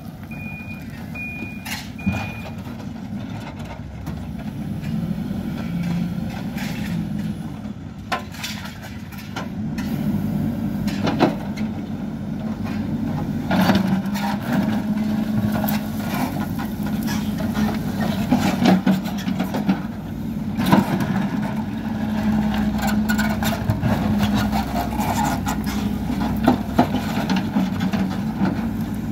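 Hidromek HMK backhoe loader's diesel engine running under load as the backhoe digs a trench in stony ground. It gets louder about ten seconds in, with scattered knocks of metal on rock. A beeping alarm sounds for the first two seconds.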